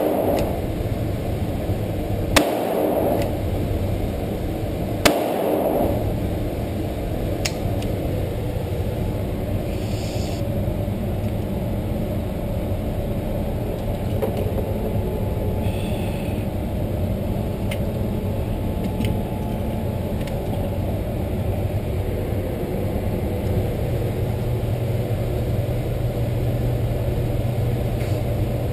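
Two revolver shots of .38 Special rounds from a .357 Magnum revolver, about two and a half and five seconds in, each ringing briefly in a reverberant indoor range. A steady low rumble runs underneath, with faint clicks later on.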